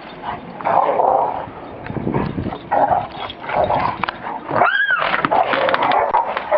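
A dog barking repeatedly in short bursts, with one brief high call near the end that rises and falls in pitch.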